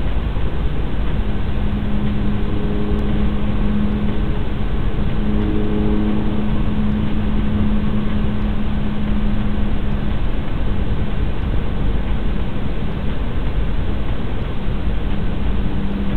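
A low, steady droning hum over loud hiss, picked up by a cheap security camera's microphone. The hum comes in about a second in, is strongest for the next several seconds, fades away after about ten seconds and swells back near the end.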